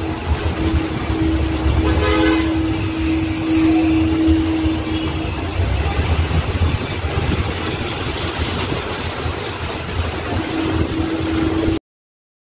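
Floodwater rushing, a loud, steady rush with a heavy low rumble. A steady tone sounds over it for the first five seconds and again near the end, and everything cuts off suddenly near the end.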